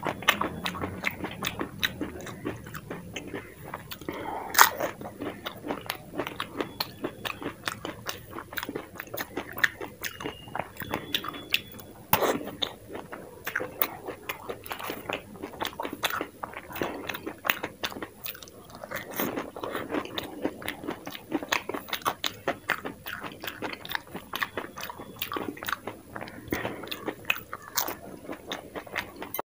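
Close-miked crunching and wet chewing of dahi puri, the crisp fried puri shells filled with yogurt cracking between the teeth. Dense small crackles run throughout, with single louder crunches about four and a half seconds in and at about twelve seconds.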